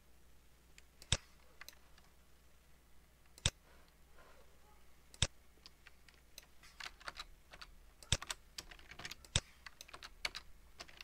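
Computer keyboard typing: sharp single key clicks a second or two apart, then a quicker run of key presses in the second half.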